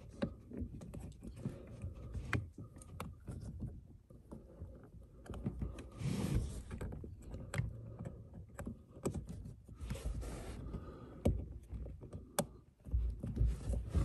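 Hands working a rubber-backed aluminum pedal cover onto a car's brake pedal: scattered small clicks and taps, with a couple of longer stretches of rubbing and scuffing.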